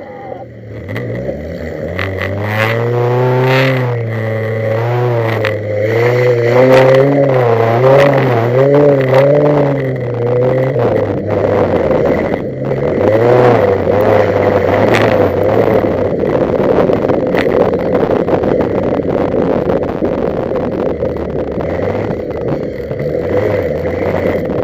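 Wreck-race car's engine revving hard, its pitch rising and falling over and over for the first ten seconds or so, then holding more steadily under load as the car drives the dirt track. Sharp clatter and knocks from the battered bodywork and from stones and dirt hitting the car.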